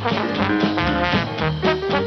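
Dixieland jazz band playing an up-tempo one-step, with horns over guitar, double bass, piano and drums.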